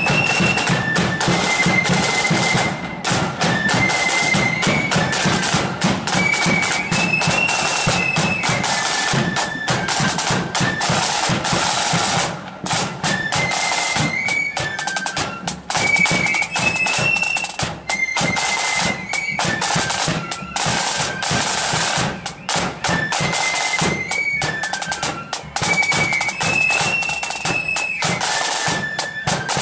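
Marching flute band playing a tune: flutes carry a high melody in unison over rapid snare-drum strokes and rolls.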